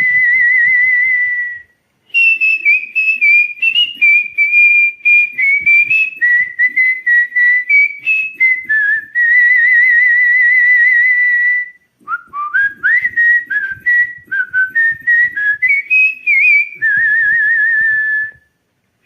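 A jilguero singing: fast runs of varied chirps and warbles, broken by long wavering trills held for about two seconds at the start, in the middle and near the end, with two short pauses between phrases.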